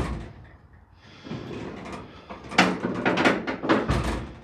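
Car door of a 1953 Ford being swung open and shut, closing with a heavy low thud near the end. The door has just been rehung on repaired hinge pins and no longer hits and slides up as it closes.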